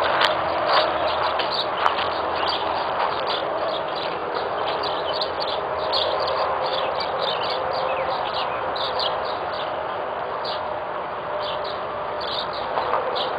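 Many small birds chirping, short rapid calls repeating throughout, over a steady background hiss.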